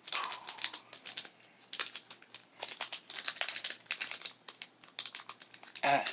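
Crinkling and rustling of a foil Pokémon card booster pack wrapper being handled, in quick irregular crackles.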